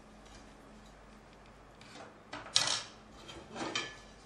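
Metal kitchen utensils clinking and clattering against a steel bowl or dish: a few sharp clinks about halfway through, the loudest, and another cluster near the end, over a faint steady hum.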